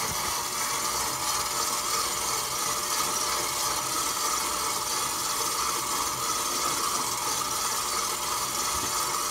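KitchenAid stand mixer running steadily on speed 2, its dough hook turning a loose, wet bread dough in a steel bowl.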